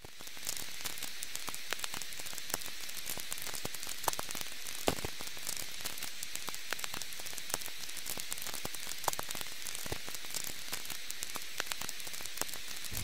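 Steady static-like hiss with scattered crackles and pops, a few of them louder, fading in at the start.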